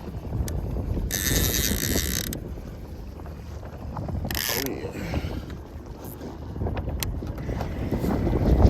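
Fishing reel being cranked against a hooked striped bass, a mechanical winding with ticks. There are two short, high hissing bursts, one lasting about a second beginning a second in and a shorter one near the fourth second, over a low steady rumble of wind and water.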